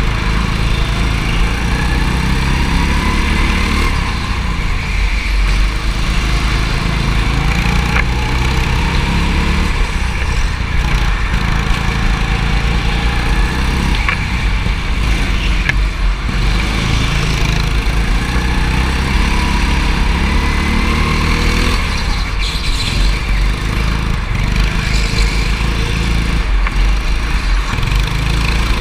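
Go-kart engine heard from on board, running under load as the kart laps. Its pitch rises on the straights and falls back for the corners, several times over.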